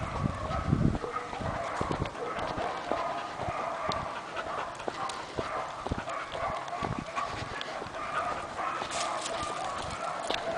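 Dog panting as it walks on a leash, with footsteps on the path heard as scattered clicks and scuffs.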